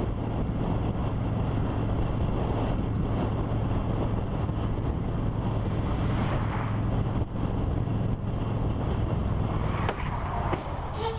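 Cruiser motorcycle riding at road speed: a steady engine hum under heavy wind noise buffeting the microphone.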